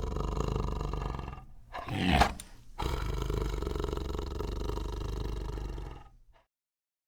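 Tiger growling in a low, continuous rumble, broken about two seconds in by a single louder roar, then growling again until it fades out after about six seconds.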